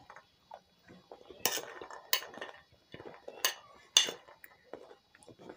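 Metal spoon clinking and scraping against a bowl while scooping food, with four sharp clinks spread over a few seconds between fainter small scrapes.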